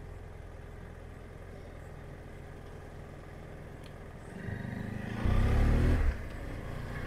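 Motorcycle engine running with a low steady hum, then about four and a half seconds in the engine sound rises and grows much louder for about a second before dropping back.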